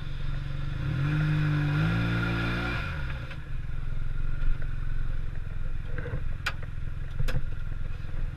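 A vehicle engine revs up for about two seconds and drops back, then runs steadily at lower revs. Two sharp clicks or knocks come late on.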